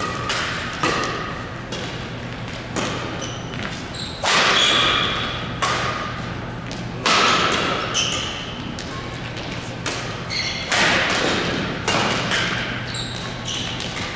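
Badminton doubles rally: rackets striking the shuttlecock in quick, irregular exchanges, some hits much louder than others, echoing in a large hall.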